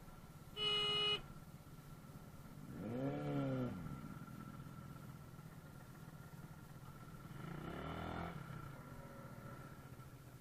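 Road traffic: a short horn beep about half a second in, then vehicle engines rising and falling in pitch twice, around three seconds and around eight seconds, over a steady low engine hum.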